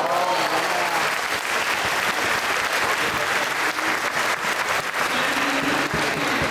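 Crowd of spectators applauding at the end of a badminton rally, with a few voices cheering in the first second.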